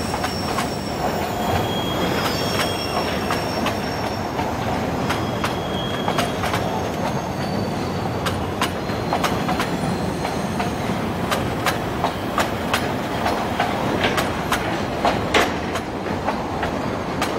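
Rail-laden flatcars of a work train rolling past on a curve: a steady rumble of steel wheels on the track, with a few brief high wheel squeals in the first half. Many sharp clicks and clanks come more often in the second half.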